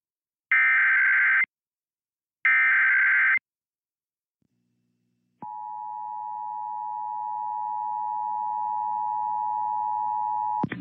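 Emergency Alert System SAME header bursts, two harsh warbling digital data bursts about a second long each, a second apart, which open an EAS alert relay. After about two seconds of silence comes the steady two-tone EAS attention signal, starting about five seconds in and cutting off sharply about five seconds later.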